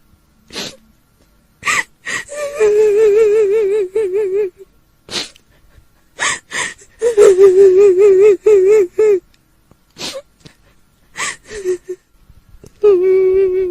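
A woman's voice crying in long, high, wavering wails, broken by short sharp gasping breaths, performed as the weeping of a kuntilanak. The wails come in three spells, about two seconds in, around seven seconds in and near the end.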